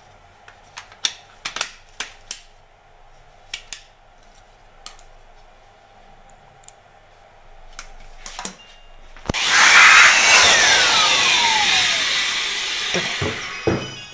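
Sharp plastic clicks and taps as the parts of an HP laser toner cartridge are handled and snapped together. About nine seconds in, a sudden loud rushing hiss starts, with a falling whine sliding down through it, and slowly fades.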